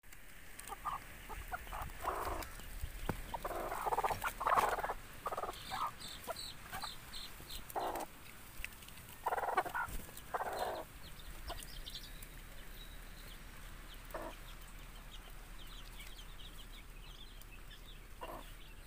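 Native hens clucking softly: a run of short clucks through the first ten seconds or so, then only a few. Faint high chirps sound in the background.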